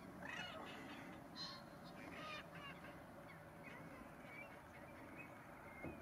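Faint calls of wild birds: a few short, bending calls in the first half, then thinner chirps, over a low steady background hiss.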